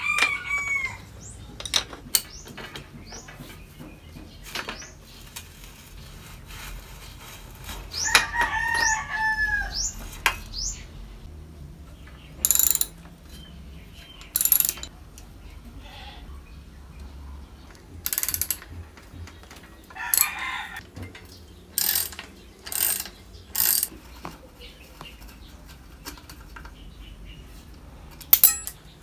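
Hand ratchet wrench clicking in short bursts, about eight of them in the second half, as it turns the pivot bolt of a mountain bike's V-brake arm. Near the start and again about eight seconds in, a bird calls with short falling notes.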